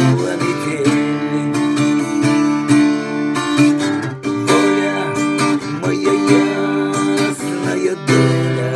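Instrumental music with strummed acoustic guitar over held chords, the chord changing about halfway through.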